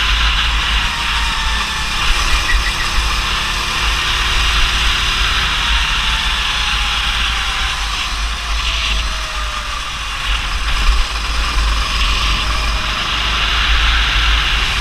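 Rental go-kart engine running while driving laps, its note sliding slowly down over several seconds, with heavy wind buffeting the kart-mounted camera's microphone.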